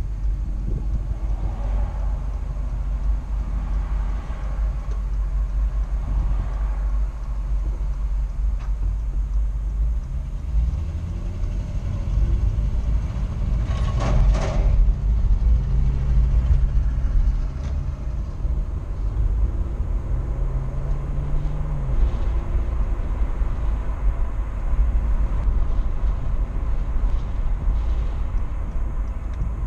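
Car driving on the road, with a steady low rumble of tyres and engine picked up by a dash cam. The engine note climbs in pitch about a third of the way in as the car speeds up and drops back about three quarters through, with one brief sharp noise near the middle.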